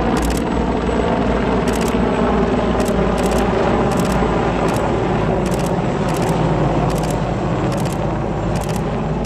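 Large Sikorsky CH-53-type heavy-lift helicopter flying overhead: a steady, deep rotor beat under the whine of its turbines, easing off slightly near the end as it moves away.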